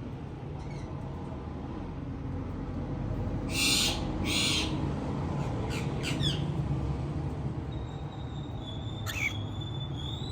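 Pearl cockatiel calling: two harsh screeches about three and a half seconds in, then short falling chirps, and a long steady whistle near the end, over a low background hum.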